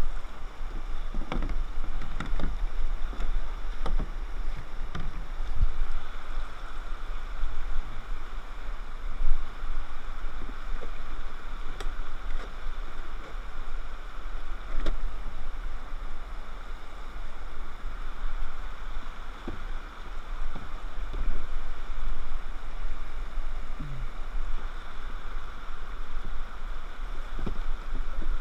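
Whitewater rapids rushing around a plastic kayak, a steady rush of water with scattered short knocks and splashes.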